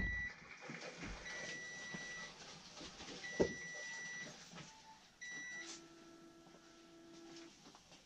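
Electronic beeping: clear high beeps about a second long, repeating about every two seconds, signalling the Rinnai tankless water heater's error code 10. After the last, shorter beep there is a steady lower hum for about two seconds, which then stops.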